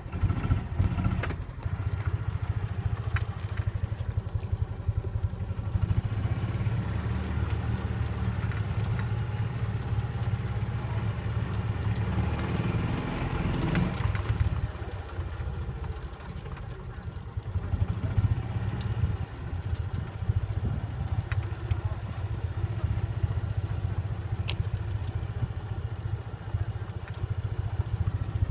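Golf cart engine running as the cart drives, a low pulsing chug that builds up in a rev about halfway through and then eases back, with light clicks and rattles from the cart.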